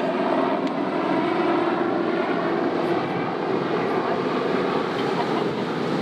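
Propeller aircraft engine droning steadily, its even hum becoming less distinct about halfway through.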